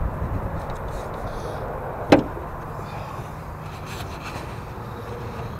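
A single sharp knock about two seconds in, over a steady low rumble, with a few faint clicks later on.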